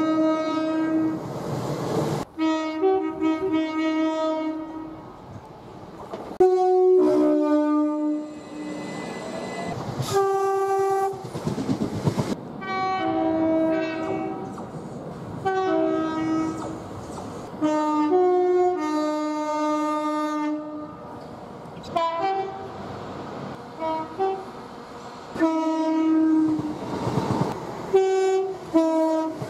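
Two-tone train horns sounded again and again, each a short high note followed by a lower one, in a string of separate blasts that start and stop abruptly, over the rumble and clatter of trains passing.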